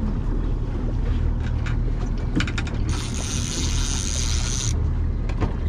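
Fishing reel being cranked in against a hooked lake trout, a mechanical clicking and whirring, with a high hissing whir about three seconds in that lasts nearly two seconds. A steady low hum from the boat's motor runs underneath.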